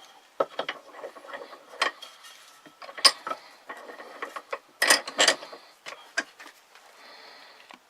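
Irregular clicks and knocks of wooden trap pieces and tools being handled and set down on a worktable, with the sharpest knocks about three and five seconds in.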